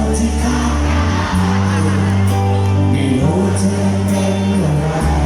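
Live band playing a song, with sustained bass notes that change every second or so.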